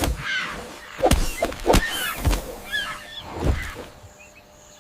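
Secretary bird's kicks striking as dull thuds: three in quick succession about a second in and another past the middle. Short high chirping calls are heard between them.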